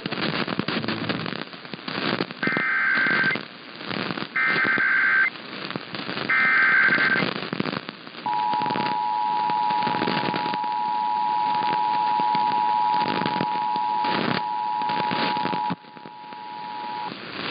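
Emergency Alert System tones over AM radio: three short bursts of SAME digital header data, then the two-tone attention signal (853 and 960 Hz) held for about nine seconds and cutting off just before the end. Crackling static runs underneath throughout.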